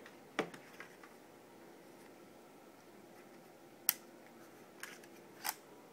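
A handful of small clicks and taps from handling a Canon EOS Rebel T3i DSLR as its power switch is turned on; the sharpest click comes about four seconds in.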